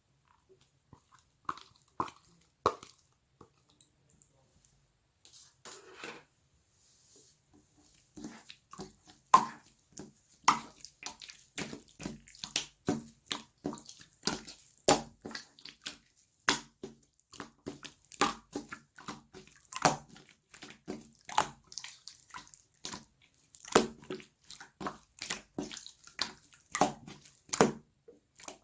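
Slime being squeezed and pressed by hand, giving irregular sharp clicks and pops: a few scattered ones at first, then about two to three a second from roughly eight seconds in.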